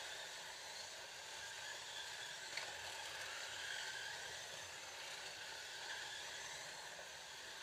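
Scalextric slot cars racing on the track: their small electric motors whine over a hiss from the track, the whine rising and falling in pitch as the cars speed up and slow down. A single click about two and a half seconds in.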